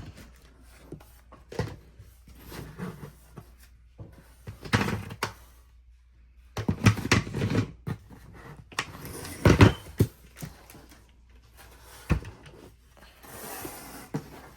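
Scattered knocks, clicks and short handling clatter, with a few sharper thuds spread through.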